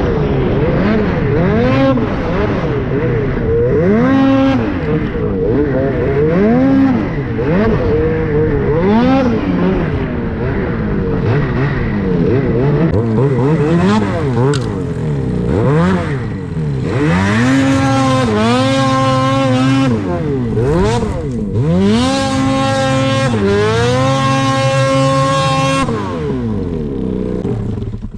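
Ski-Doo Summit Gen 5 Turbo R snowmobile's turbocharged 850 two-stroke engine revving up and down again and again under throttle. In the second half it climbs and holds at high revs in two long pulls, then drops off near the end.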